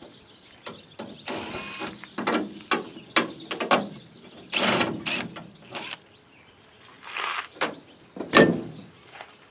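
Cordless Makita drill-driver running in short bursts on fasteners in an aluminum boat's top rail, with scattered clicks and metal knocks. A louder knock comes near the end.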